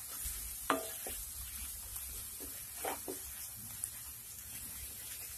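Onion and spice paste frying in oil in a kadai, sizzling faintly while a spatula stirs it, with a couple of sharper spatula scrapes against the pan, one about a second in and one near the three-second mark.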